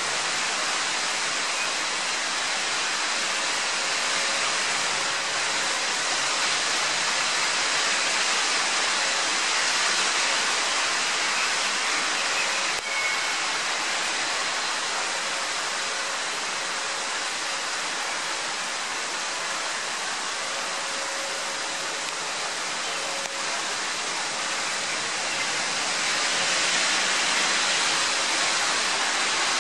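Heavy rain downpour pouring onto a city street, a steady dense hiss that swells gently now and then.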